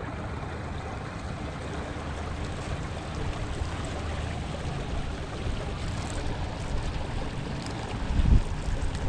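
Steady rush of moving river water and wind. A loud low thump comes about eight seconds in, with a few smaller bumps after it.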